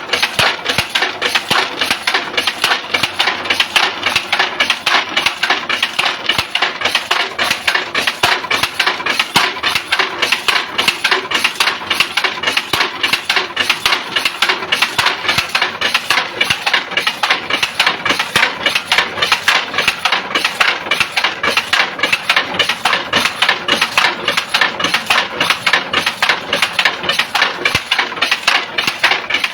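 A machine clattering in a steady, fast rhythm of sharp knocks, about four or five a second, without let-up.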